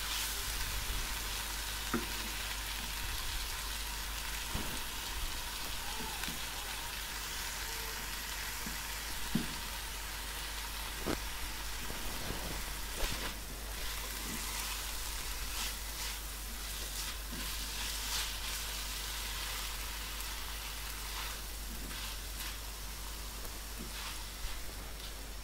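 Chicken and shredded vegetables sizzling steadily in a non-stick wok as they are stirred and tossed with a spatula, with a few short scrapes and taps of the spatula against the pan.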